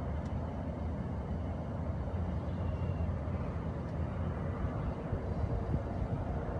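Steady low rumble of distant heavy transport, with no distinct events apart from a couple of faint clicks.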